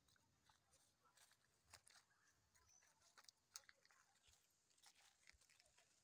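Near silence, with faint, irregular crunching of dry leaves underfoot as someone walks a leaf-covered forest path.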